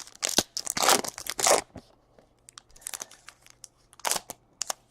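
Trading card pack wrapper being torn open and crinkled in the hands: the loudest run of rough tearing, crinkling bursts comes in the first two seconds, followed by a few brief rustles.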